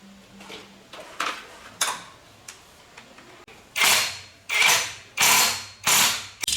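Recoil pull-starter of a lawn mower engine being pulled: two light tugs, then four hard pulls in quick succession, each a rasping whirr of rope and ratchet. The engine catches as the last pull ends.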